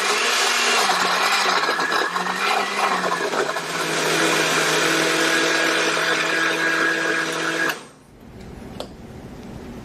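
A Hamilton Beach 58148A 700-watt blender's motor runs at speed, blending fruit in its glass jar. Its pitch wavers for the first few seconds while the chunks are being broken down, then runs steady once the mix is smooth. It cuts off about eight seconds in.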